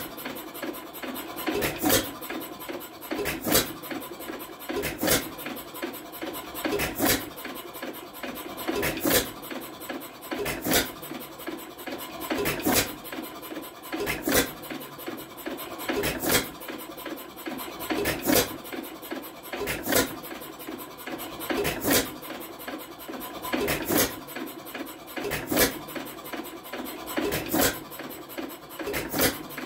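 IHC Tom Thumb 1 hp air-cooled hit-and-miss engine running on its own, firing with a sharp bang about every two seconds and clattering between firings as it coasts on its flywheels.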